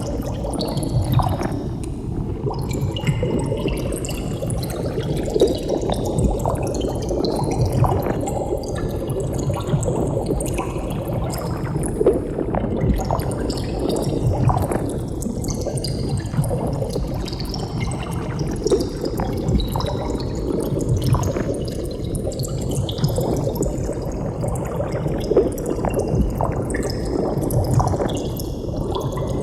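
Continuous bubbling water: a dense, steady stream of small bubbles popping and gurgling, with a slowly sweeping hollow, phaser-like colouring.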